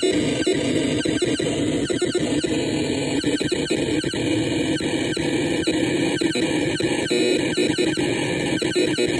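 OM-BOT Noise Catalyst experimental noise synth putting out a harsh, dense electronic noise over a steady low hum, with quick falling chirps repeating throughout. The chirps come thick at first and thin out to two or three a second after about two and a half seconds.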